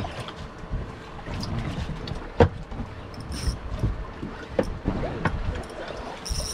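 Wind and water noise around a small open boat, with scattered knocks and clicks; the loudest is a single sharp knock about two and a half seconds in.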